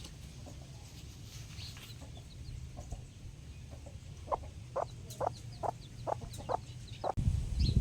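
Chickens clucking: a quick run of about seven short clucks a little past halfway, over a steady low rumble that gets louder near the end.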